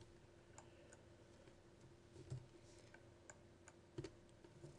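Faint computer keyboard keystrokes and mouse clicks, a few scattered single taps over near silence, as numbers are typed into form fields.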